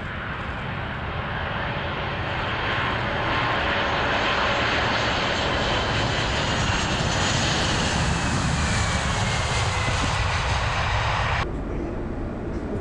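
Boeing 747-400 jet engines on landing: a loud, steady rumble and hiss with a faint whine that slowly falls in pitch. Near the end the sound drops abruptly and becomes duller.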